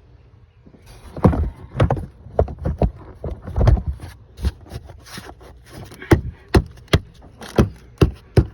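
Series of sharp plastic knocks and clicks from a cover being pressed and tapped back into place on the engine. They come irregularly at first, then settle to about two a second in the second half.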